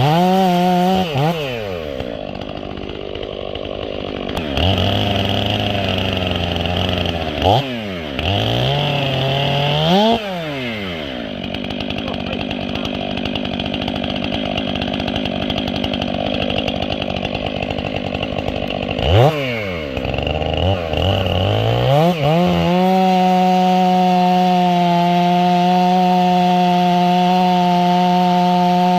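Stihl 500i two-stroke chainsaw with its muffler baffle removed and port opened. It blips the throttle, then runs at lower revs under load through long cuts in wood, with quick revs between them. Near the end it is held at a steady, high wide-open-throttle scream.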